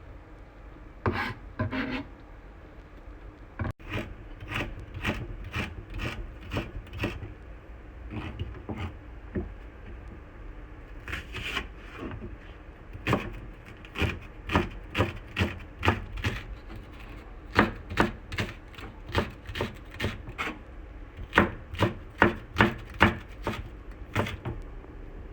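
A kitchen utensil knocking and scraping in runs of sharp, evenly paced strokes, about two a second, with short pauses: cooking work on a board or in a pan.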